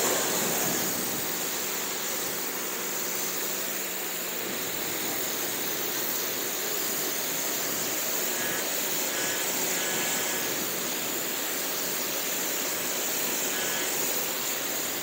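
Pressure washer spraying rinse water onto a monster truck's body panels: a steady, unbroken hiss of the jet.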